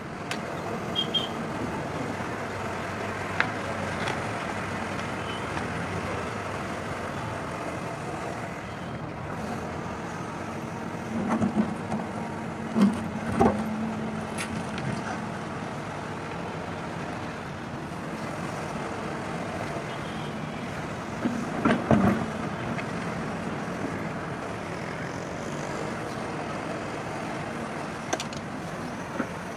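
Hyundai 140 crawler excavator's diesel engine running steadily as it digs and moves soil. Twice, about twelve and twenty-two seconds in, it swells into a louder hum with a few knocks.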